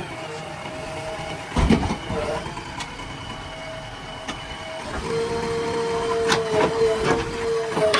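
Earthmoving machine's diesel engine running with a steady whine that grows stronger about five seconds in. A loud clank comes about a second and a half in, and a few sharp knocks near the end.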